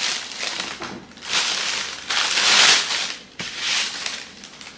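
Packaging crinkling and rustling as a parcel is pulled open and its contents are unwrapped, in several bursts, loudest around the middle.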